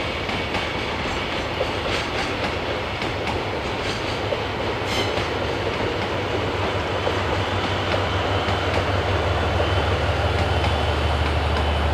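Freight train wagons rolling past, wheels clicking over the rail joints; near the end a steady low diesel engine hum comes in and grows, as a diesel locomotive draws close.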